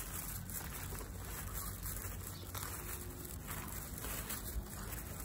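Steady outdoor background noise with a low rumble of wind on the microphone and a few faint ticks.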